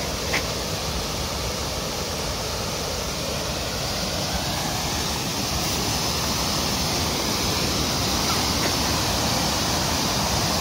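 Steady rushing noise outdoors, even from low to high, growing a little louder in the second half.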